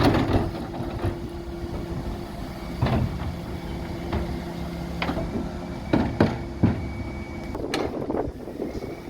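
Dennis Elite 6 refuse truck running with a steady hum, broken by several sharp knocks and clatters: one about three seconds in and a cluster around six to eight seconds.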